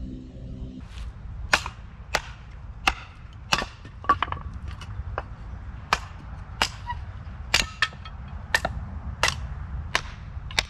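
Hatchet splitting kindling on a wooden chopping stump: a run of sharp wooden knocks, one about every two-thirds of a second, starting about a second and a half in. A low steady hum is heard for the first second.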